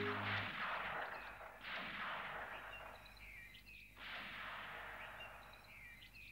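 A soft rushing ambient noise that swells and fades about every two seconds, with a few faint high chirps near the middle and end. Music fades out just as it begins.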